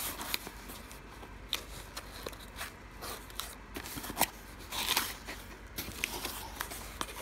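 A small cardboard box being handled and opened: irregular scrapes, taps and rustles of cardboard flaps, with a louder rustle about five seconds in.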